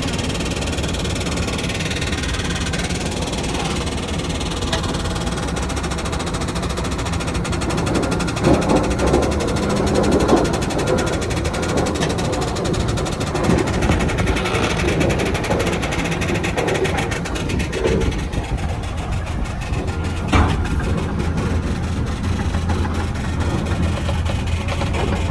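Diesel engine of a loaded dump truck running with a steady low hum and rhythmic clatter as the truck reverses, heard from the driver's seat, with a few clunks and one sharp knock about twenty seconds in.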